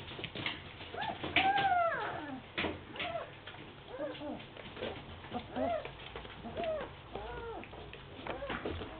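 German Shepherd puppies whining and yipping in a string of short calls that rise and fall in pitch, about one a second. The loudest and longest comes about one and a half seconds in and slides down in pitch. Small sharp clicks fall between the calls, from claws and paws on the wooden floor.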